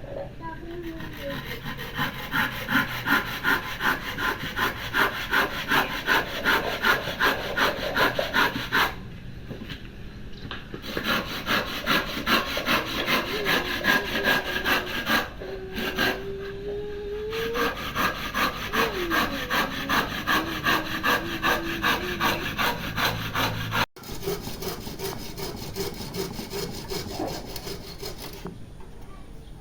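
Rhythmic back-and-forth scraping strokes, about three a second, in several runs broken by short pauses.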